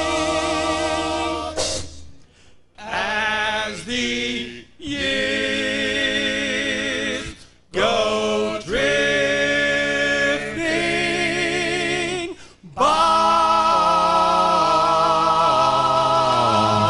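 Male doo-wop vocal group singing close harmony, unaccompanied, in held phrases broken by short pauses. From about thirteen seconds in the voices hold one long chord while the bass voice steps down beneath it.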